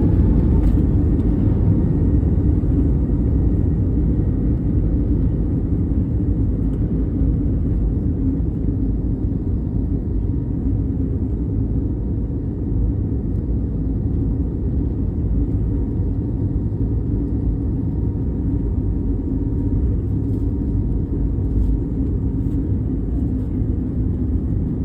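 Airbus A320neo jet engines and airflow heard from inside the passenger cabin: a steady, loud low rumble with a faint steady whine above it.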